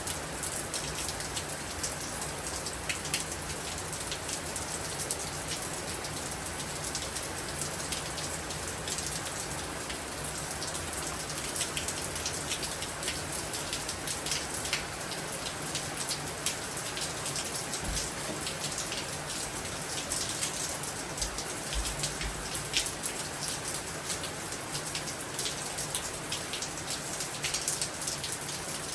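Heavy storm rain falling steadily, with many sharp drop hits ticking on a hard surface.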